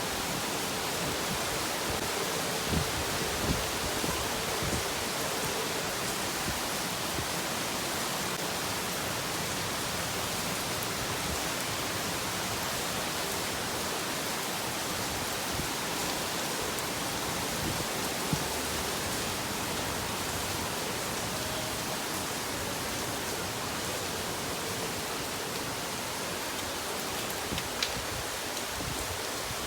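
Steady rain falling, an even hiss with a few sharper ticks of drops here and there.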